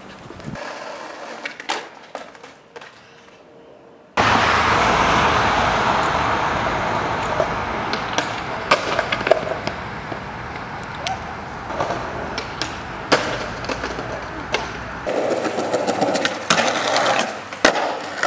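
Skateboard on pavement: a loud, steady roar of wheels rolling over rough asphalt starts suddenly about four seconds in. Near the end it gives way to sharp clacks and knocks of the board's tail and wheels striking concrete.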